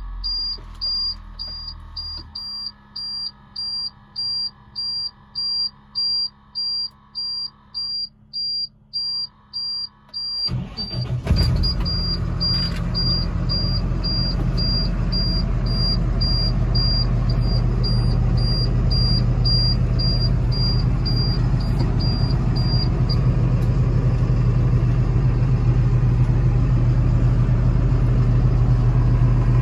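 A cab warning chime beeps about one and a half times a second. About ten seconds in, the 2010 Ford F750's diesel engine cranks briefly, catches and settles into a steady idle. The chime stops a little past two-thirds of the way through.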